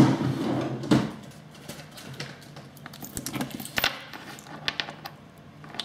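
Light, irregular clicks and taps of soldering tools being handled on a workbench, with a louder knock at the very start and another about a second in.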